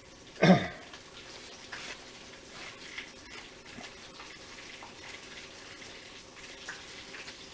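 Bacon sizzling in a frying pan in the background: a steady hiss with scattered small crackles. A brief loud noise comes about half a second in, and the paper wrapper of a butter stick rustles as the butter is rubbed over baked biscuits.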